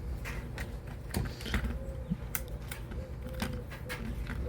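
Irregular small clicks and knocks of a Tippmann Air Raid AR6BB airsoft rifle's parts being handled and fitted back together.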